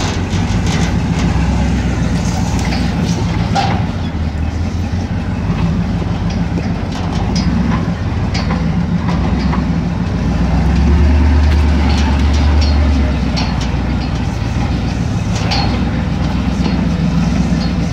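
4x4 vehicle's engine running at low speed while crawling over a rocky dirt trail, with scattered clicks, knocks and rattles from the rough ground and the body. The engine note swells louder for about two seconds in the middle.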